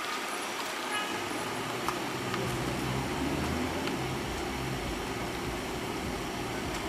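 Street background with a motor vehicle engine running, its low rumble growing stronger from about a second in, and a few faint ticks.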